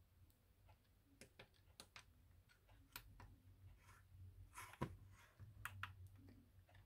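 Faint clicks of the Access HD portable TV's buttons being pressed, a handful scattered over several seconds, over a low steady hum.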